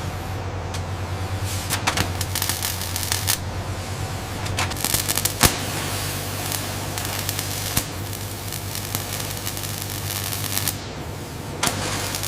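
Assembly-line workshop noise: a steady low machinery hum under rapid clicking and clatter, with one sharp knock about five and a half seconds in.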